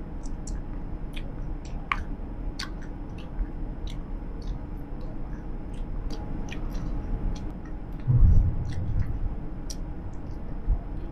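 Close-up open-mouthed chewing of Big League Chew bubble gum: many small wet clicks and smacks over the steady low rumble of a moving vehicle. A low thud about eight seconds in.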